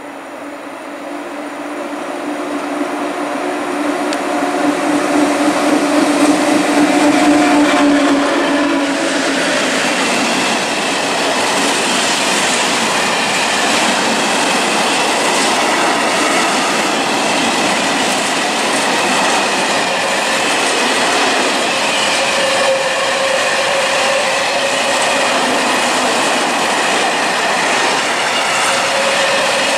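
A pair of EU07 electric locomotives approaching and passing, their steady hum growing louder over the first eight seconds or so. Then a long train of coal hopper wagons rolls by with a steady rumble and clatter of wheels on rail joints.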